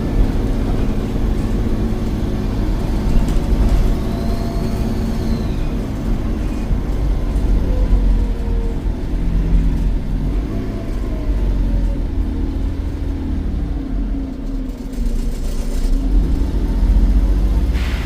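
Volvo D7E 7.1-litre diesel engine of a Wrightbus Eclipse Volvo B7RLE bus running on the move, a steady low rumble with engine tones gliding up and down. Its turbocharger whistles, rising and falling once about four seconds in.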